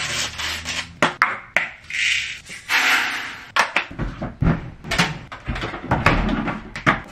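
Loading a front-loading washing machine: a string of knocks, clatter and rustling as a detergent bottle and the laundry are handled, with the machine's door pushed shut near the end.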